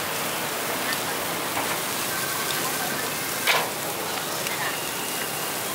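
Beef and pork skewers sizzling over a charcoal grill, a steady crackling hiss, with a single sharp clack about three and a half seconds in.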